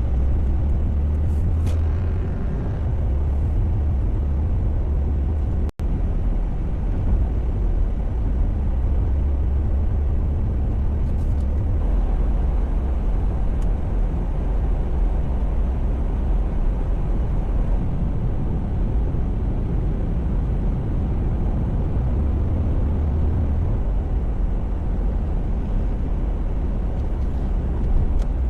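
Car driving: a steady, low road-and-engine rumble, broken by a brief drop to near silence about six seconds in.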